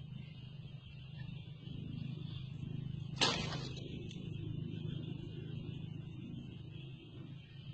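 A bamboo snare trap going off: one sudden sharp swish-snap about three seconds in as the noose jerks tight on a snake, over a steady low hum.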